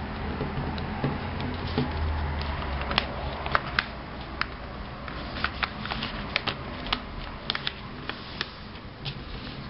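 A sheet of paper being folded and creased by hand: irregular crisp crackles and taps, most of them in the middle, over a low steady hum.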